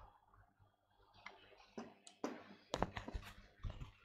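Faint, irregular clicks and knocks from a phone being handled close to a headset microphone, bunched together and loudest about three seconds in.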